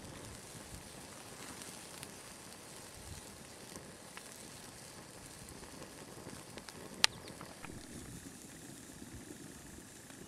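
Wood fire burning in a homemade rocket stove with a hamburger patty sizzling on its grate: a faint steady hiss with scattered crackles and one sharp pop about seven seconds in.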